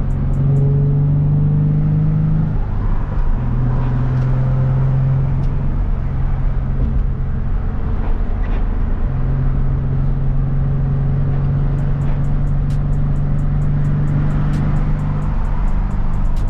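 Inside a car on the move: engine and road noise with music from the car stereo, its bass notes held for several seconds at a time.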